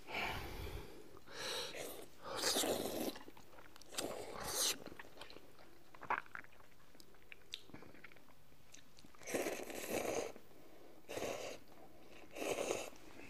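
Close-miked eating of hot and sour noodles: chewing and mouth noises in about seven bursts of under a second each, with a few faint clicks between them.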